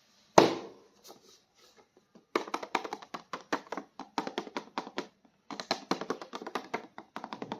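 Hands handling and opening plastic toy packaging: a sharp knock about half a second in, then two long runs of rapid, irregular crackling clicks with a short pause between them.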